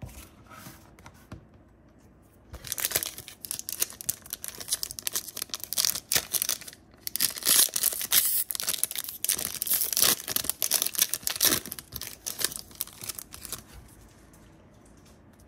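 A Yu-Gi-Oh! foil booster pack wrapper being torn open and crinkled by hand, a run of crackling rustles lasting about ten seconds, loudest in the middle.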